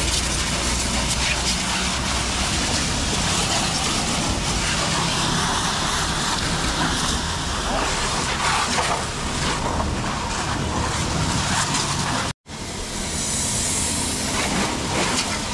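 Pressure washer jet spraying water over a car's engine bay and bodywork, a steady loud hiss of spray. It breaks off for a moment about twelve seconds in, then resumes.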